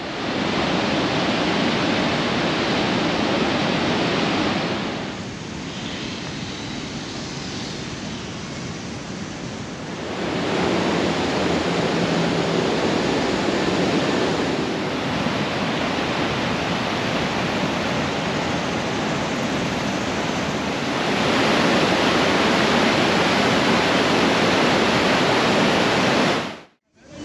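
Rushing water of the Niagara River's falls and rapids: a steady, dense rush with no let-up. It drops quieter about five seconds in, swells back about ten seconds in, is loudest from about twenty seconds in, and cuts off just before the end.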